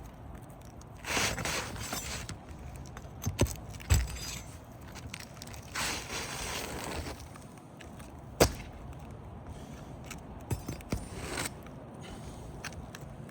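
Hand work on asphalt roof shingles: scraping of tools against the shingles and a few sharp knocks and clicks, the loudest a little past the middle, as nails are worked loose to remove a wind-damaged shingle.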